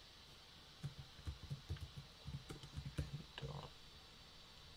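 Computer keyboard typing: a quick, irregular run of keystrokes that starts about a second in and stops near the end.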